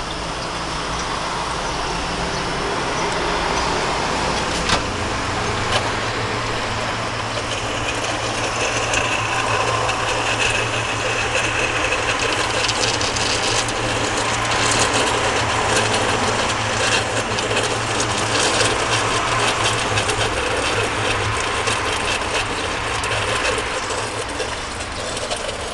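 Hoshizaki IM-95M cube ice maker running: a steady mechanical hum and rattle from inside the machine. About five seconds in there is a click and a lower hum joins, as if a motor has switched on.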